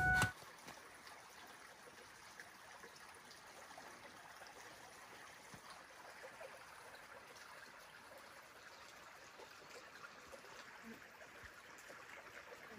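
Faint, steady rushing of outdoor ambience, an even hiss with no distinct events.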